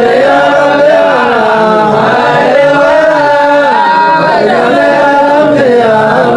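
Male vocals chanting an Arabic devotional madh in praise of the Prophet, a continuous melodic line with several voices layered together.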